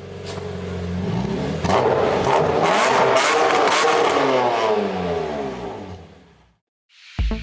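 Car engine revving, building in loudness with its pitch sweeping up and down, with several sharp cracks through the middle, then fading away about six seconds in.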